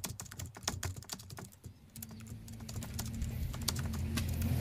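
Typing sound effect: fast, irregular key clicks like a keyboard, dense at first and thinning out after about a second and a half. A low steady hum rises in level under the clicks from about halfway.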